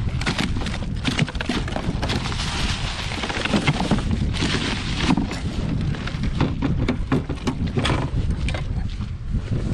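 Wind buffeting the microphone on a small boat: a steady low rumble with irregular clicks and knocks, and a stretch of hiss in the middle.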